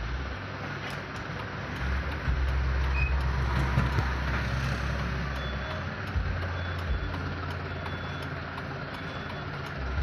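Truck engine running with a steady low drone, heard from inside the cab as the truck creeps forward. The engine note shifts about two seconds in and again around six seconds.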